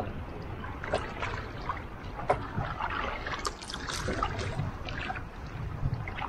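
Small waves lapping against the plastic hull of a Feelfree Nomad sit-on-top kayak, with many scattered little splashes and trickles of water.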